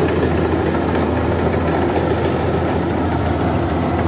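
Kubota DC-93 rice combine harvester running steadily under load while cutting and threshing rice, a continuous engine drone heard from on board the machine.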